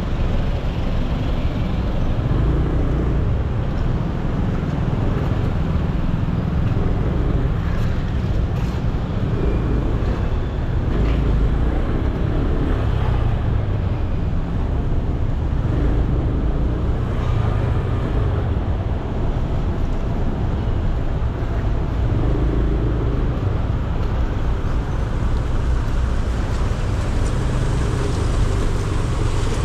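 Steady rumble of city road traffic heard from a motorbike riding among cars, with its own engine and tyre noise mixed in.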